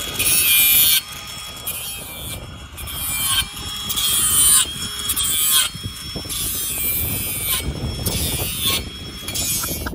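Ryobi cordless angle grinder's cutting disc biting into a galvanised steel pipe fence post. It cuts in a string of short passes about a second each, a high hissing screech with pauses between them.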